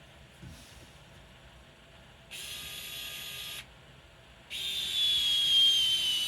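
Small electric screwdriver driving a screw in two runs, a short one and then a louder, longer one whose whine falls in pitch as the motor loads up with the screw tightening into the RC axle part.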